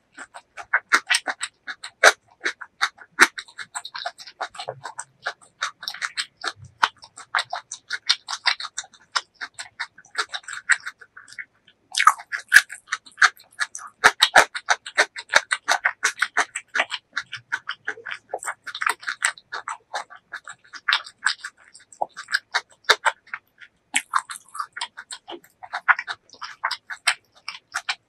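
Close-miked chewing of a mouthful of food: rapid wet, sticky mouth clicks and smacks, with a brief pause a little before halfway.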